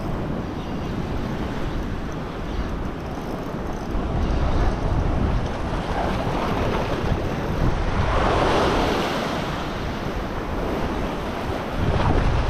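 Ocean swell surging and washing over a rock ledge, with wind buffeting the microphone as a low rumble. The wash swells louder about two-thirds of the way through, then eases.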